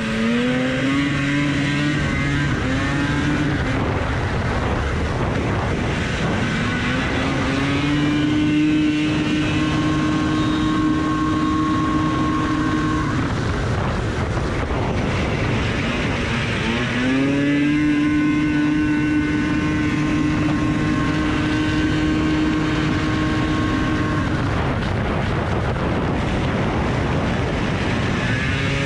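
Rupp Nitro snowmobile's two-stroke engine heard onboard at racing speed. It revs up and holds high on the straights, drops off through the turns about 13 and 24 seconds in, and climbs again each time, with track and wind noise underneath.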